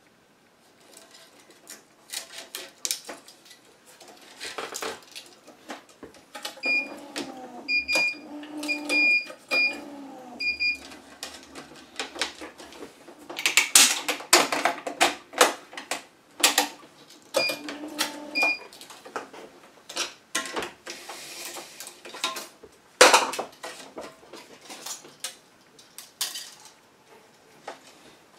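Tennis racket being strung on an electronic stringing machine: string drawn through the frame with loud swishes, and clamps and tools clicking and knocking. Clusters of short electronic beeps from the machine sound twice, the first over a motor whirring.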